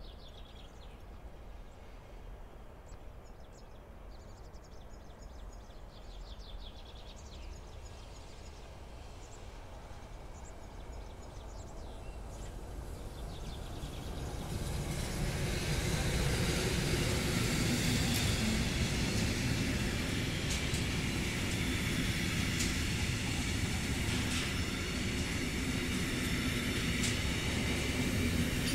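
Siemens Vectron electric locomotive at the head of an intermodal freight train, approaching very slowly and growing louder until it passes about halfway through. Then a steady rumble of container and trailer wagons rolling by, with occasional sharp wheel clicks. Faint bird chirps early on.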